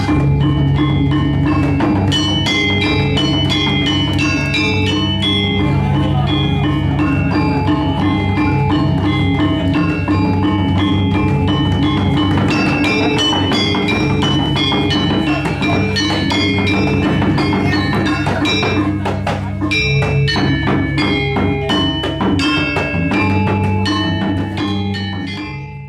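Balinese gamelan ensemble playing a fast piece: quick, dense strokes on bronze metallophones over long, ringing low gong tones. The music stops at the very end.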